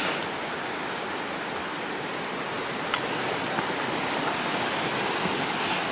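Steady rush of a fast-flowing river, with a faint click about three seconds in.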